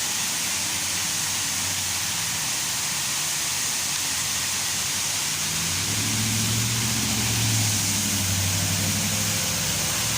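Steady rush of falling water from an artificial waterfall. A low engine hum joins it about halfway through, loudest a little after that, then eases off near the end.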